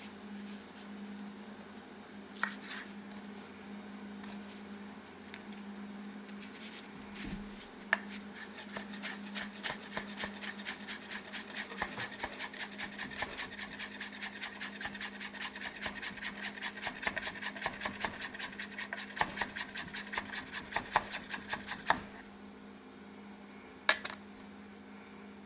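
Chef's knife chopping rolled perilla leaves on a bamboo cutting board. A few handling rubs and taps come first. Then, from about eight seconds in, there is a fast, even run of knife strikes on the wood, about four a second, stopping a few seconds before the end, with one more strike near the end.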